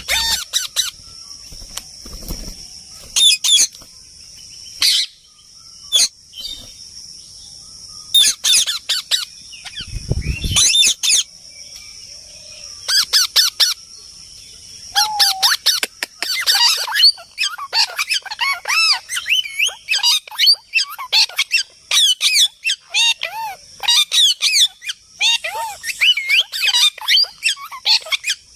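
Parrots squawking and chirping, with scattered calls at first and a busy, almost continuous run of chirps in the second half. A steady high-pitched hiss sits under the first half and stops about halfway through.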